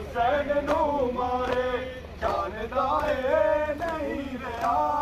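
Men chanting a noha, the Shia lament for Imam Hussain, to a slow, wavering melody. Sharp beats about every three-quarters of a second come from mourners beating their chests (matam) in time with it.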